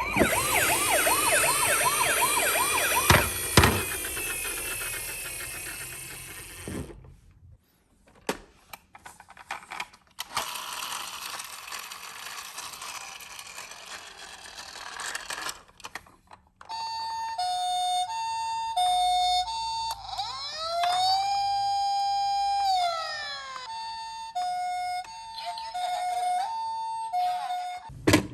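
Ambulance siren. A wailing sweep sounds for the first several seconds; after a broken stretch of noise it switches to the Japanese two-tone high-low 'pee-po' alternation, interrupted midway by one slow rise-and-fall wail.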